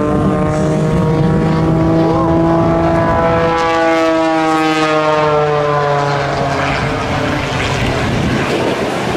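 Single-engine aerobatic propeller plane in a dive, its engine and propeller making a steady tone that slowly drops in pitch. The tone fades near the end under a rushing noise.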